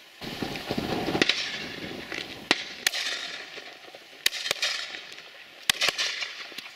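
Distant shotgun shots from a line of guns firing at driven partridges: about six sharp reports, mostly in quick pairs, left-and-right doubles.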